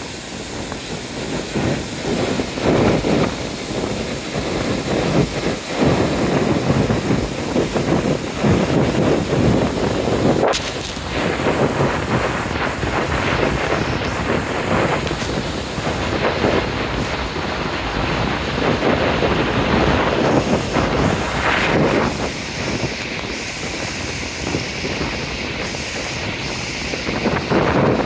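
Ægissíðufoss waterfall on the Ytri-Rangá river, white water rushing steadily over rock ledges, with wind buffeting the microphone in uneven gusts. A single sharp click comes about ten seconds in.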